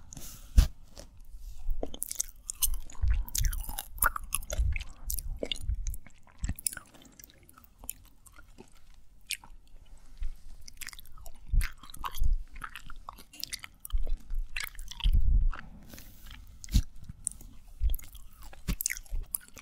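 Close-miked chewing and biting of candy, a run of irregular clicks with a few heavier, duller bites.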